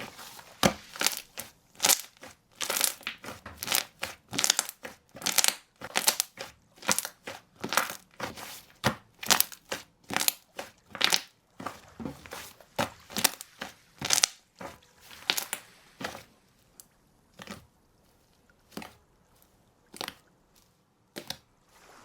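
Crunchy textured slime being squeezed and pressed by hand, giving a quick series of sharp crackling crunches, about two a second. The crunches thin out to a few isolated ones after about 16 seconds.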